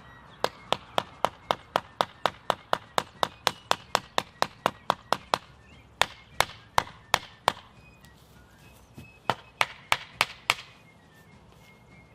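Wooden tent stake being driven into turf with a flat block of wood, a quick run of knocks at about four a second, then two shorter runs of blows after brief pauses.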